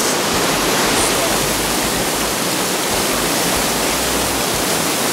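Steady, loud rush of white water at the Devil's Cataract of Victoria Falls.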